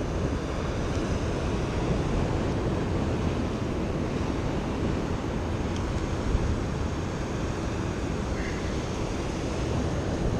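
Steady wind noise on the microphone over the wash of ocean surf, with a faint knock about six seconds in.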